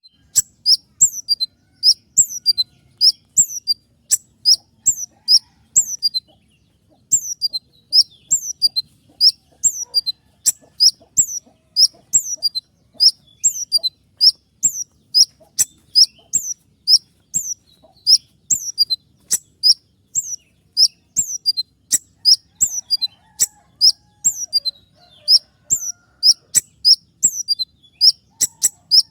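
Common iora (konin) calling: sharp, high-pitched notes that fall in pitch, given over and over about every two-thirds of a second, with a pause of about a second around six seconds in.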